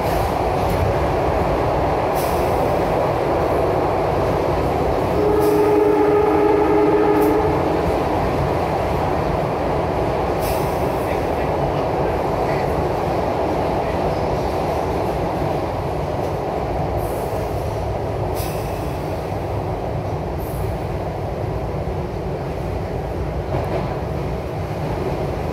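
Broad Street Line Kawasaki subway train running at speed through the tunnel with a steady heavy rumble of wheels on rail. About five seconds in, a two-note pitched tone sounds for about two seconds over the rumble.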